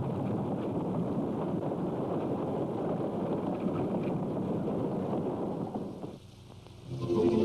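A steady rushing, rumbling noise that fades away about six seconds in, with music starting near the end.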